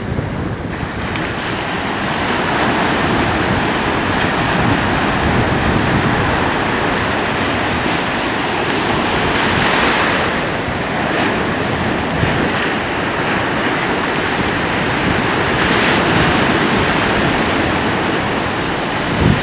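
Ocean surf breaking and washing up the beach in a steady rush, swelling louder about ten seconds in and again about sixteen seconds in.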